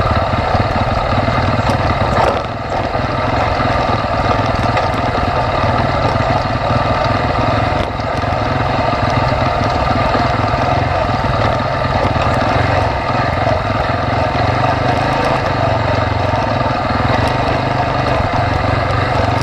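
ATV quad bike engine running steadily at low speed, a continuous drone that dips briefly twice.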